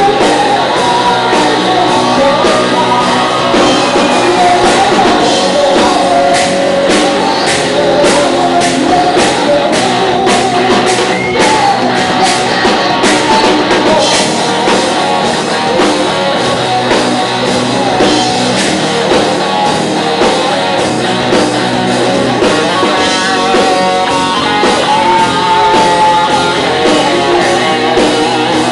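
Live rock band playing loud, with singing over distorted electric guitars and a drum kit, recorded at close range with the sound crowding the microphone.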